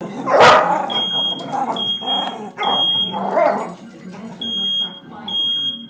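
Smoke alarm sounding in groups of three high, steady beeps, with a dog barking repeatedly over it. A loud bark about half a second in is the loudest sound.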